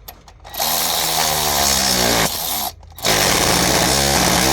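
Handheld power tool spinning a 13 mm bolt into the cylinder head in two bursts, its motor pitch sliding as it loads up. The bolt is running down stiffly, which the mechanic suspects is debris in the threads.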